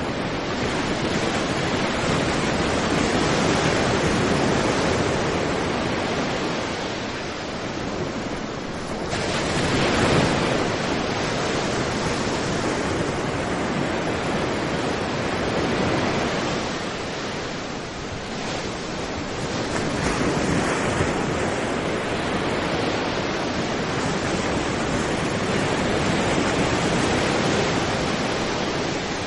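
Sea waves breaking on a beach: a continuous surf wash that swells and eases every few seconds as each wave comes in, loudest about ten seconds in.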